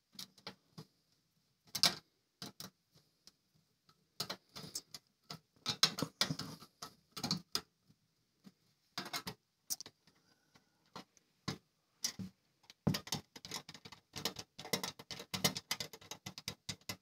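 Small screws being turned by hand in the sheet-metal chassis of a Tandy 1000 SX computer as its speaker is screwed back onto the rear panel. The sound is irregular small metal clicks of tool on screw, in clusters, loudest about two seconds and six seconds in, with a dense run of clicks near the end.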